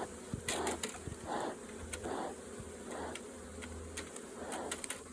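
Honeybees buzzing around an open hive: a steady low hum with swells that rise and fall every half second or so, and scattered light clicks and taps.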